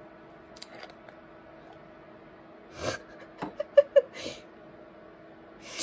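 A person's short breathy snorts and exhales, with a click and a quick stifled laugh in between, over a faint steady hum.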